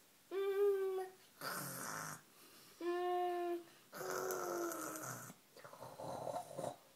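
A child fake-snoring. Twice a short humming snore with a clear pitch is followed by a longer, breathy hissing breath, and a last, fainter breath comes near the end.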